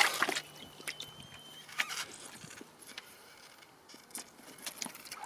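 Faint, scattered small clicks and drips from an inflated inner tube being handled in a tub of water.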